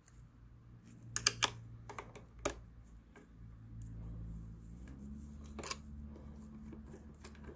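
Scattered light clicks and rattles from the chain and bar of a Kobalt chainsaw being handled and adjusted, over a faint steady low hum.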